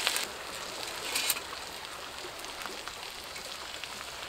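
Small wood fire crackling steadily in a folding metal camp stove as sticks are fed into it, with a brief rustle about a second in.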